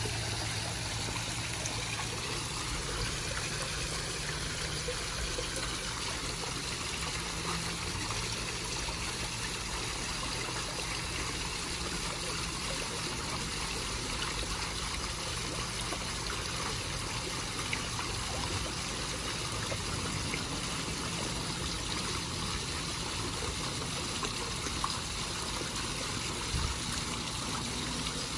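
A small rock waterfall spilling into a garden koi pond, a steady splashing trickle of water.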